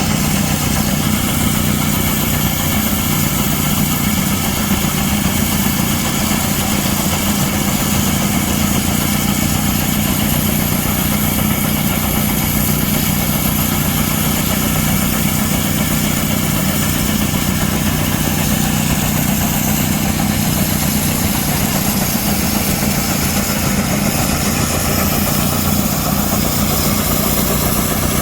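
An engine running steadily at an even speed, with a constant low hum that does not change.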